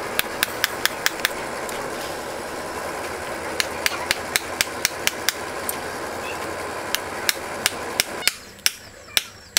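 Quick, sharp, light taps, about five a second, in three runs, over a steady background hum that drops away about eight seconds in.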